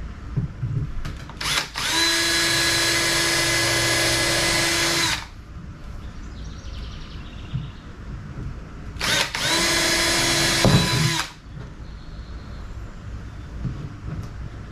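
Power drill with a 3/16-inch bit boring two holes through the plastic jet sled and its wear bar. Two steady high whines are heard, the first about three seconds long and the second about two, each spinning up at its start, with faint handling noises between them.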